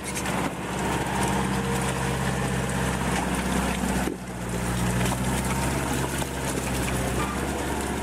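Fiat 80-90 tractor's diesel engine running steadily under load while hauling a loaded trailer through mud, with a brief drop in level about four seconds in.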